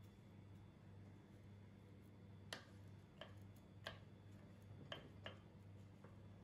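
Five light clicks of a wooden spoon and dry spaghetti knocking against the side of a metal pot as the spaghetti is pressed down into the water, over a faint low hum.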